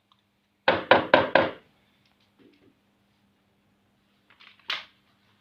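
Four quick, loud knocks on a hard surface, about a quarter second apart, then a few light taps and a single sharp click near the end.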